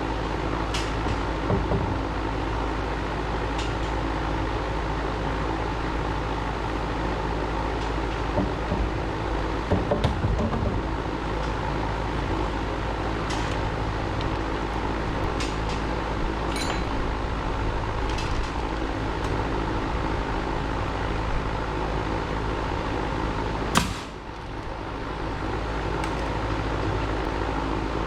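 An engine running steadily with an even hum, with occasional sharp clicks and knocks of building work over it, the loudest a hard knock near the end.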